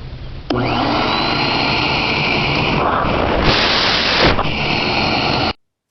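Vacmaster VBV1210 wet/dry shop vacuum running: a loud, steady rushing noise with a high whine. It comes in suddenly about half a second in, turns louder and hissier for about a second past the midpoint, and cuts off abruptly near the end.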